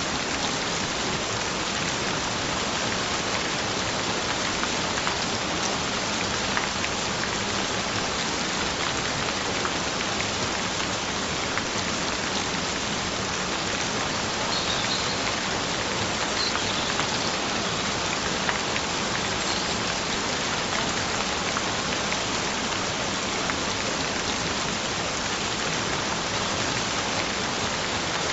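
Steady gentle rain: an even, continuous hiss of rainfall with faint scattered drop ticks.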